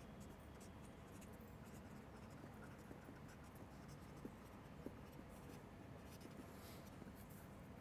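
Faint scratching of a marker pen writing on paper, in short strokes, with a couple of light ticks near the middle.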